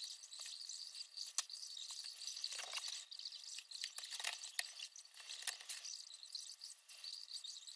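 Thin laser-cut balsa and plywood model-kit parts clicking and scraping as they are handled and sorted on a wooden bench, with a sheet of paper plans rustling.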